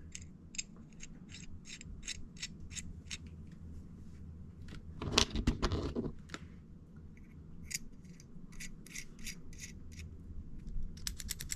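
Metal 2 mm mechanical pencil being clicked and handled: a string of sharp small metallic clicks, two or three a second, with a louder handling rustle midway and a quick run of clicks near the end.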